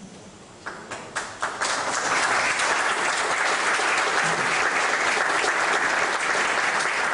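Audience applauding: a few scattered claps about a second in, quickly building into steady applause.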